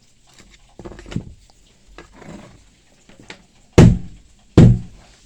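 A screwdriver scraping wet, packed grass out of a lawnmower drive wheel's gear teeth in short scratches. Near the end come two short, loud bursts less than a second apart.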